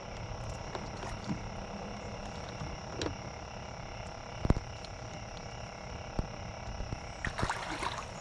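Steady riverbank background with a single sharp knock about halfway through. Near the end comes a burst of water splashing and gear rattling as a rod is snatched from a kayak's rod holder on a catfish strike.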